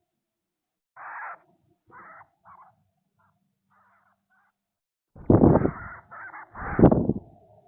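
Harsh, rasping bird calls: three short calls in the first few seconds, then two much louder, longer ones near the end.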